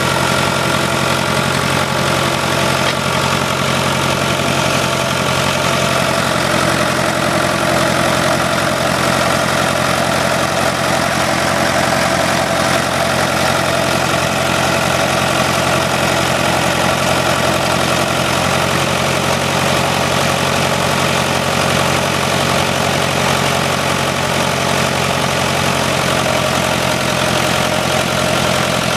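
International TD-6 crawler dozer's four-cylinder diesel idling steadily at an even speed. It has just been started for the first time in over a year.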